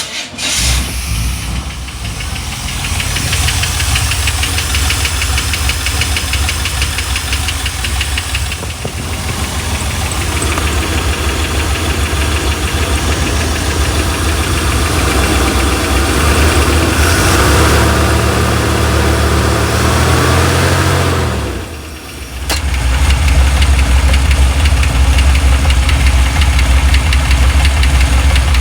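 1987 Chevrolet C10 pickup engine running, with a rapid, even ticking over the engine note. That tick is the odd noise whose cause the owner does not know. The engine speeds up for a few seconds past the middle. Then the sound drops away for a moment and picks up again.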